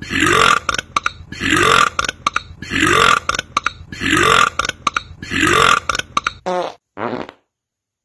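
A man's loud burp repeated as a loop, one about every 1.2 seconds, each rising in pitch, with sharp clicks in between. Near the end come two shorter, different sounds, and then it stops suddenly.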